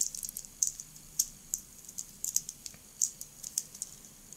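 Plastic blocks of a Xiaomi infinity-cube fidget toy clicking against each other as they are flipped and folded by hand: sharp, irregular clicks, two or three a second.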